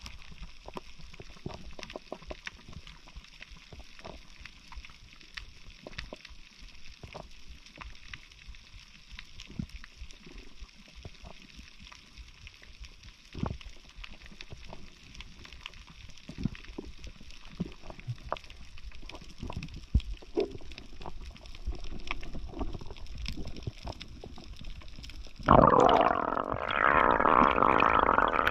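Underwater ambience picked up by a submerged camera: a steady faint hiss with scattered small clicks and crackles. About 25 seconds in, a loud rush of moving water starts and keeps going as the diver swims up toward the surface.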